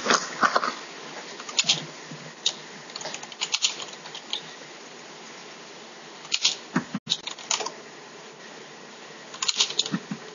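Irregular clicking of computer keyboard keys over a steady hiss, heard through a video-call connection.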